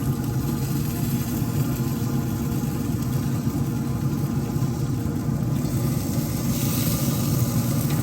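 A steady low mechanical drone, like an engine or motor idling, with a brief hiss near the end.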